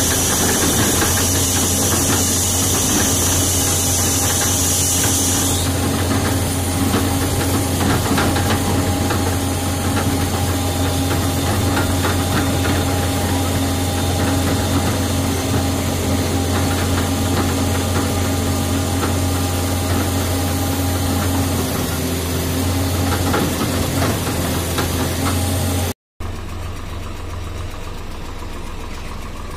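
Excavator diesel engine running steadily, heard from inside the cab, with a high hiss over it for the first few seconds. After a cut near the end, a quieter engine runs on.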